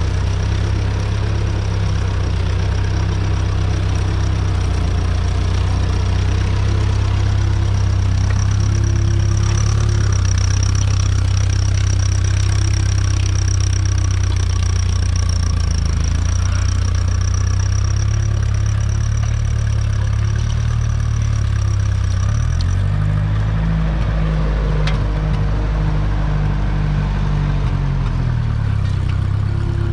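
1952 Ferguson TED20's 2.1-litre four-cylinder TVO engine running steadily under load as the tractor pulls a two-furrow mounted plough through the soil. About three-quarters of the way through, the engine note shifts higher for several seconds, then settles back near the end.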